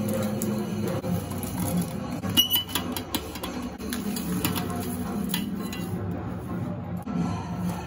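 Steel slotted spoon scraping and clinking against a stainless steel pan and mixer jar as fried red chillies and garlic are scooped out and tipped in, with a few sharp metal clinks about two and a half seconds in.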